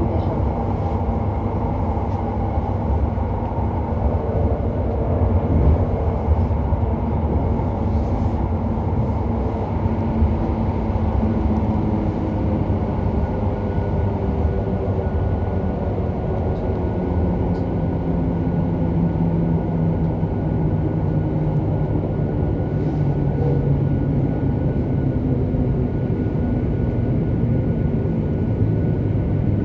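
Running sound inside a JR Hokkaido 731 series EMU car, MoHa 731-109: steady rail noise under a loud motor roar like that of a nose-suspended (tsurikake) drive. The roar comes from the traction motor on the Otaru-side bogie and is an abnormal noise for this series. Several motor tones fall slowly in pitch through the second half as the train slows.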